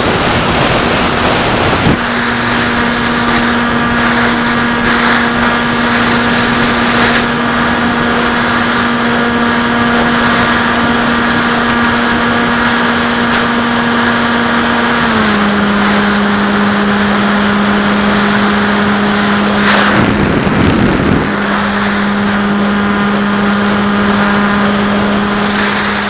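SkyHunter FPV plane's electric motor and propeller, picked up on the onboard camera: a steady drone whose pitch steps down a little about fifteen seconds in as the motor slows. Rushes of wind noise come near the start and again about twenty seconds in.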